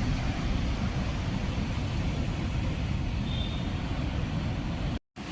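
Steady roar of a large waterfall in full flow, a dense, even rush heaviest in the low end. It cuts off suddenly near the end.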